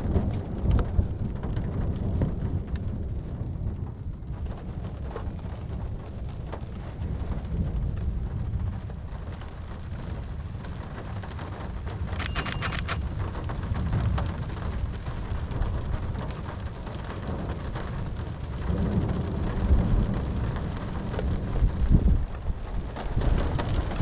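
Thunderstorm: low, continuous thunder rumbling under steady rain, swelling louder twice near the end.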